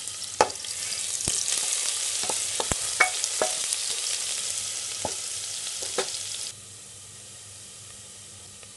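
Chopped onion and green chilli sizzling in hot oil in a pressure cooker, being sautéed until lightly pink, with a stirring spatula knocking against the pot about seven times. About two-thirds of the way through the sizzle suddenly drops to a quieter level.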